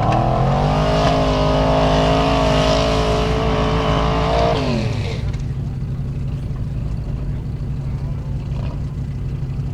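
Off-road competition jeep's engine revving up hard, held at high revs for about four seconds, then dropping off sharply as the throttle is let go and running on at lower revs.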